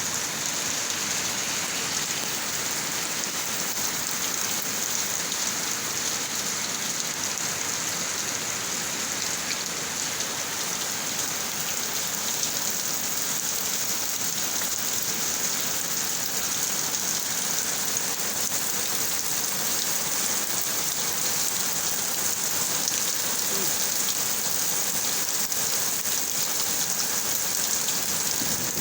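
Heavy rain falling steadily, an even hiss of many drops that neither builds nor fades.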